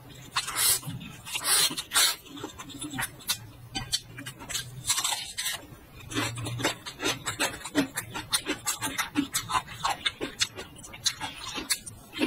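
Close-up eating sounds: loud noodle slurps in the first couple of seconds, then wet, crunchy chewing of raw garlic, a quick run of crunches and mouth smacks several times a second.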